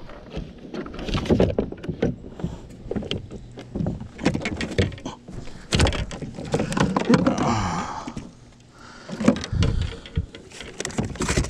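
Scattered knocks, bumps and clatters against the hull of a plastic fishing kayak as a just-landed bass and the gear are handled, with a short rustling hiss about seven seconds in.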